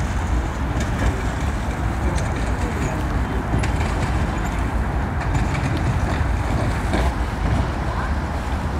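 Steady low rumble and hiss of riding on a small boat under way across a lake: motor and wind noise with no breaks.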